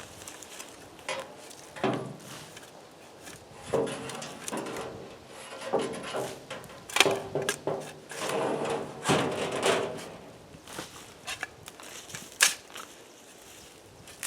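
Irregular knocks, clatters and scrapes of wooden boards being handled and knocked against each other, with a few short ringing thuds.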